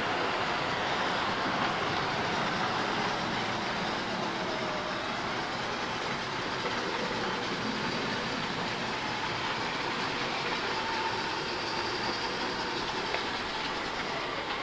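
Model trains running on a layout's track: a steady whir of small electric motors and wheels rolling on the rails.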